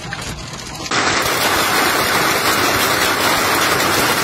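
Hail drumming on a car's windscreen and roof, then about a second in a louder, dense clatter of hailstones pelting down onto the ground and nearby surfaces.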